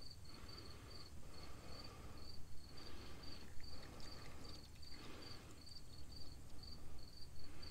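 Automatic transmission fluid trickling from a bottle down a funnel into the transmission dipstick tube, with soft gurgling swells about once a second. A cricket chirps steadily behind it, about three chirps a second.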